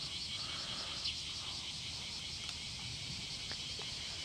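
Steady high-pitched insect chorus, a shrill buzz with a fast pulse, with a couple of faint light clicks about three and a half seconds in.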